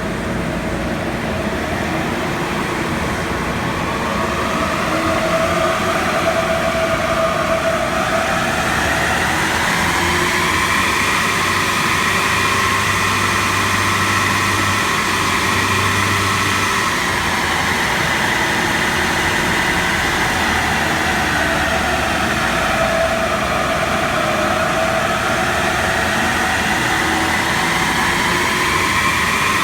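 A car engine running, its pitch climbing about eight seconds in, easing back down in the middle, and climbing again near the end.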